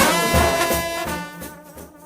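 Live gospel music with held chords, dropping in level about a second and a half in.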